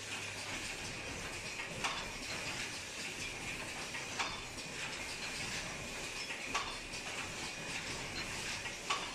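Double-station paper cup making machine running: a steady mechanical whirr and hiss, with a sharp knock repeating a little more than every two seconds, four times.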